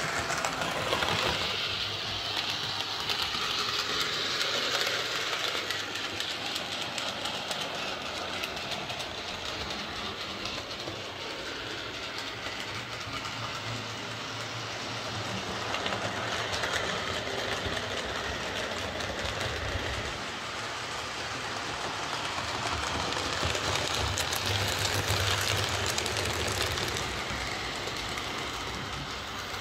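Hornby OO gauge Schools Class model locomotive, driven by a ringfield motor in its tender, running steadily on the track. A continuous motor whir with the wheels clicking over rail joints and pointwork grows louder twice as it passes close. It runs smoothly now that its wheel quartering has been repaired.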